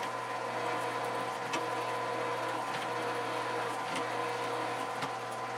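Drill press running with a steady hum while its bit drills through a drill jig into a part held in a vise, with a few faint ticks.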